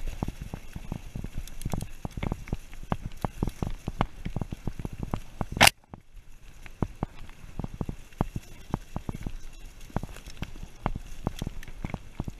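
Mountain bike rattling over a rough dirt trail: a dense run of irregular knocks and clatters from the bike and its camera mount. One loud sharp knock comes about halfway through, after which the rattling briefly drops away.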